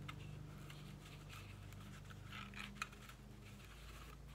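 Faint rustling and light ticks of cardstock being handled as an adhesive Velcro dot is fitted to a paper card holder's flap, with one sharper click a little before three seconds in, over a steady low hum.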